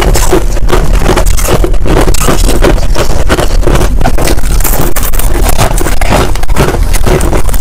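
Finely crushed ice chewed close to a clip-on microphone: a loud, steady run of crisp crunches, several a second.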